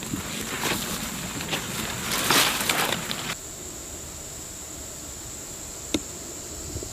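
Rustling and crackling of grass and vegetation as a person crawls through it, stopping abruptly a little over three seconds in. A steady high insect buzz runs underneath, and a single sharp click sounds near the end.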